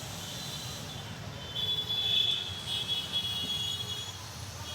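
Street traffic rumbling steadily, with a shrill high-pitched tone starting about one and a half seconds in and coming and going.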